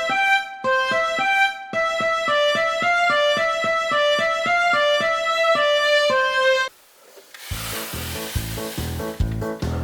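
Background music: a short tune of quick, evenly spaced notes that stops about two thirds in. After a brief gap, a different piece with a steady beat begins.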